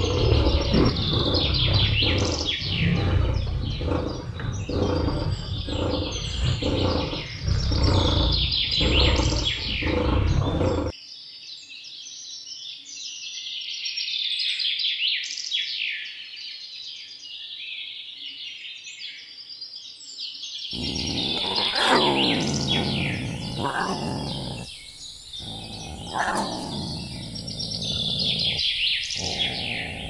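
Birds chirping and tweeting throughout, layered over lion growls and grunts in a deep, pulsing run that cuts off abruptly about eleven seconds in, leaving only birdsong. The deep calls return about twenty seconds in, several of them falling in pitch.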